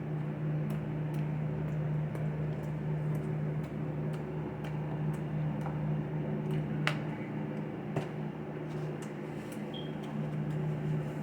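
A steady low mechanical hum, with scattered small clicks and smacks of someone eating.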